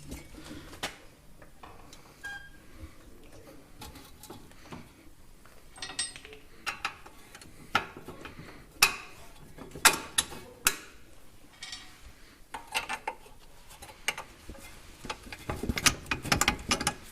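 Hand tools at work on a front coilover being bolted back onto the hub: intermittent ratchet clicks and metallic clinks and knocks of bolts and spanners, with a few sharper clinks from about six seconds in.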